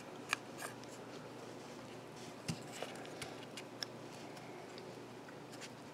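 Faint, scattered clicks and light scrapes of a small pry tool working a glued-in part loose from the plastic housing of a DJI Mavic 2 drone arm.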